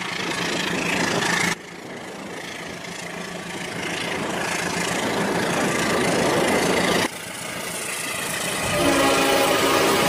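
Toy train running along the track, its running noise growing louder as it approaches and dropping abruptly twice. About nine seconds in, a steady train horn starts and keeps sounding.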